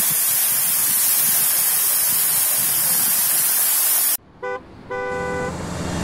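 Waterfall pouring onto rocks close by, a steady rushing hiss that cuts off suddenly about four seconds in. A short beep and then a brief horn-like honk follow.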